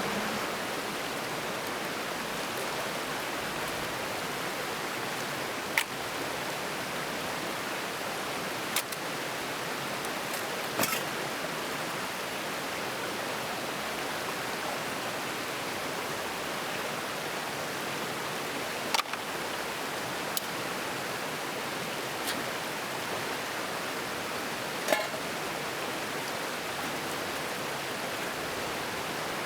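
Steady hissing or rushing noise with about seven short, sharp clicks or snaps scattered through it.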